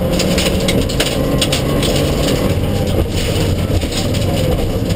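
Inside the cabin of a Mitsubishi Lancer Evolution IX rally car at speed: its turbocharged four-cylinder engine running hard and changing pitch, over loud road and tyre noise, with scattered sharp knocks and rattles.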